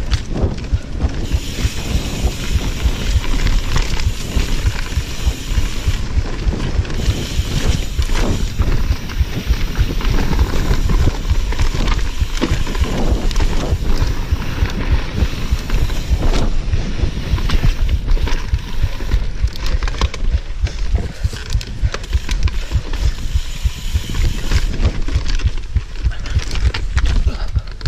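Mountain bike riding fast down a dirt singletrack, heard from a chest-mounted GoPro: steady wind buffeting on the microphone over the tyres rolling on dirt, with frequent clicks and rattles from the bike over bumps.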